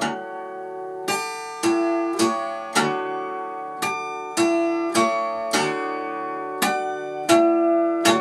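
Acoustic guitar strummed in single chord strokes, about one every half second, each chord left to ring into the next, with no singing over it.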